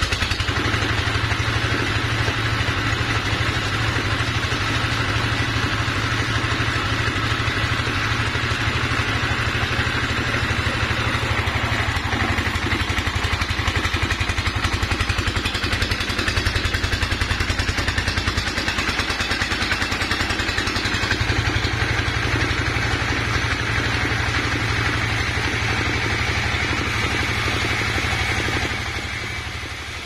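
Single-cylinder stationary diesel engine running steadily with a fast, even beat.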